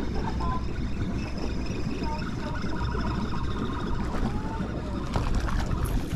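Steady low rumble of wind buffeting the microphone, with a few small splashes near the end from a hooked smallmouth bass thrashing at the surface in shallow water.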